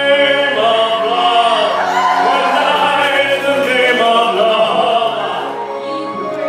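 Amplified singing over a backing track: a sung voice holding long notes above steady musical accompaniment.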